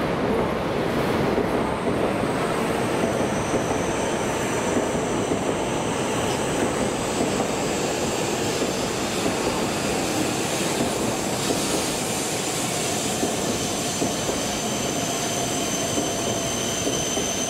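E5 series Shinkansen running into the platform and slowing, a steady rush of wheels and running gear. A thin, high squeal comes in about two seconds in and grows stronger toward the end as the train brakes.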